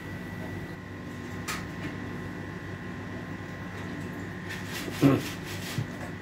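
Cooking oil poured from a large plastic bottle into a nonstick frying pan, over a steady background hum with a faint whine. A small click comes about a second and a half in, and a thump about five seconds in as the pouring ends.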